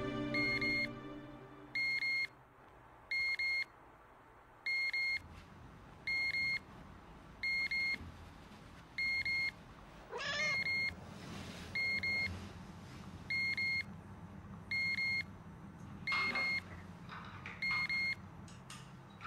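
Electronic alarm beeping in short double beeps about every second and a half, with a cat meowing once, a rising-then-falling call, about ten seconds in.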